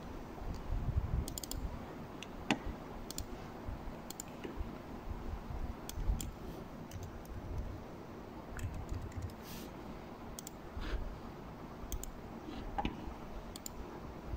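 Computer mouse clicks and keyboard key presses, scattered singly and in short groups with pauses between, over a low steady hum.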